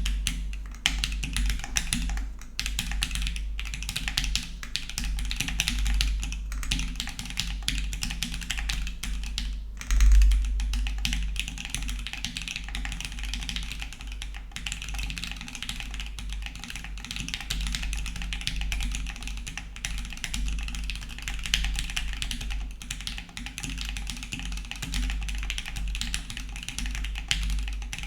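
Fast, continuous typing on a Tengu mechanical keyboard with lubed OP Black switches, an aluminium plate and PBT keycaps: a dense stream of keystroke clacks, with a brief pause and then a louder strike about ten seconds in.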